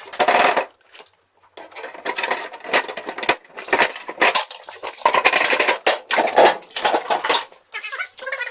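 Metal clattering and clinking: a burst of clanks, a brief lull about a second in, then continuing irregular rattling and clanking of metal objects.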